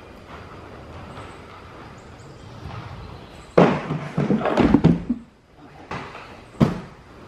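Aggressive inline skates rolling on a concrete floor, then a sudden hit onto a wooden grind box about three and a half seconds in and a loud scraping grind along its pipe coping for about a second and a half: a Royale grind attempt. The wheels then roll on the concrete again, and there is a sharp thud near the end.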